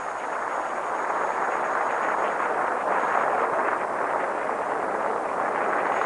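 Large arena crowd applauding and cheering, a steady wash of clapping that swells slightly about a second in.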